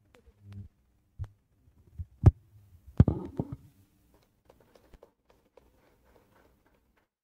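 Handheld microphone handling: a few loud low thumps, the loudest about two and three seconds in. Then light, scattered applause from a few people clapping.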